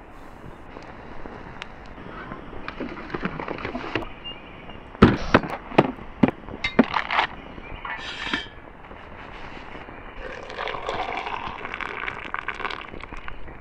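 A quick run of sharp clicks and knocks, the loudest sounds here, then hot water poured from a pot into a French press of coffee grounds, splashing steadily near the end.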